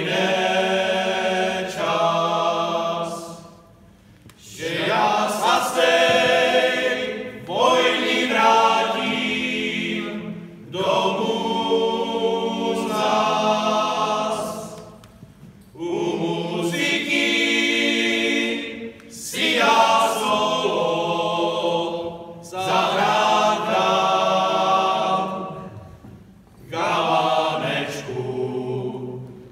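Male folk choir singing a Moravian folk song a cappella, several voices together in long sustained phrases with short breaks for breath between them.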